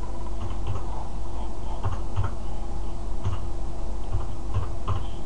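Computer keyboard keys being typed, about a dozen irregular keystrokes entering a password, over a steady low electrical hum.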